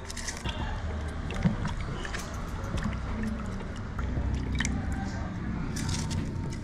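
A kitchen knife cutting through onions held in the hand over a bowl of water, with a few short sharp cutting clicks and soft wet sounds against a steady low background rumble.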